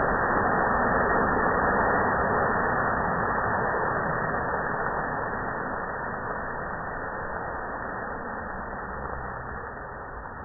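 Steady rushing roar of a grease-fire fireball, burning cooking fat thrown out of the pan by water flashing to steam, slowly dying away.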